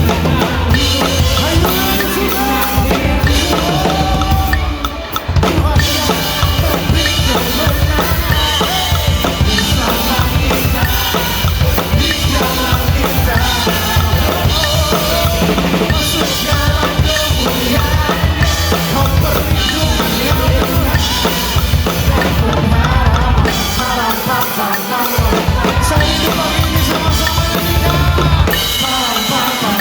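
Drum kit played fast, at about 190 beats per minute, along with a song's backing track and a click track, with bass drum, snare and rimshots.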